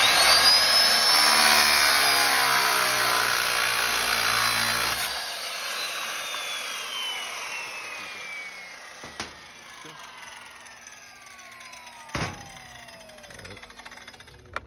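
Circular saw with a metal-cutting blade starting up and cutting through a steel anchor bolt for about five seconds; then the trigger is released and the blade coasts down with a long falling whine. A knock sounds about twelve seconds in.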